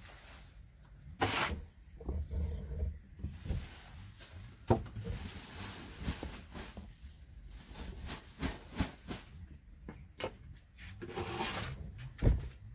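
Dry husk poultry litter being scooped with a plastic dustpan and poured into a woven plastic sack: irregular rustling and hissing pours and scrapes. There is a sharp click about a third of the way in and a dull thump near the end.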